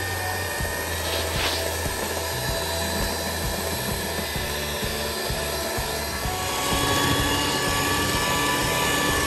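Electric hand mixer running steadily, its twin beaters whipping eggs, sugar and SP emulsifier to a thick, pale foam. The motor's hum gets a little louder about two-thirds of the way through.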